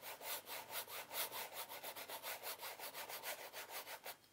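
Wide flat paintbrush brushing paint onto a stretched canvas in quick back-and-forth strokes: a soft, rhythmic scratchy rubbing, about five strokes a second, that fades a little near the end.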